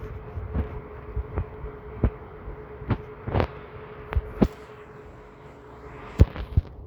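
Human stomach gurgling: about ten short, irregular pops and gurgles, one of them longer about three and a half seconds in, over a steady faint hum.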